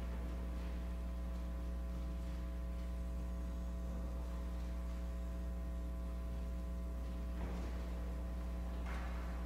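Steady electrical mains hum with its overtones, at an even level. Two faint brief noises about seven and a half and nine seconds in.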